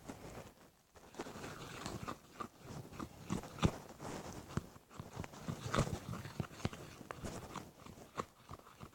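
Spoon stirring white-glue slime in a container just after the activator goes in: irregular wet squelches and small clicks as the mixture starts to take on consistency.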